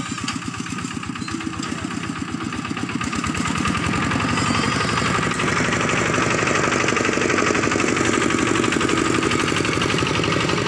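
Two-wheel walking tractor's single-cylinder diesel engine running with a rapid, even putter while it pushes soil with a front blade, getting louder about three seconds in as it comes close.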